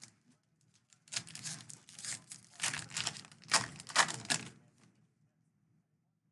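A foil trading-card pack wrapper being torn open and crinkled by hand: a few seconds of irregular crackling and ripping that stops about five seconds in.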